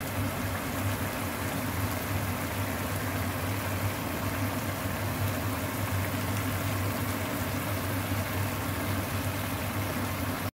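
Tomato sauce with fish simmering in a nonstick frying pan, bubbling and crackling steadily over a steady low hum.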